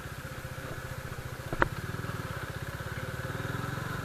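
Motorcycle engine running steadily at low speed, with an even rhythm of firing pulses. A single short click comes about one and a half seconds in.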